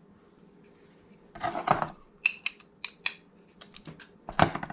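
Sharp clicks and clinks of metal angle-grinder parts being handled, after a short rustle, with a louder clank near the end.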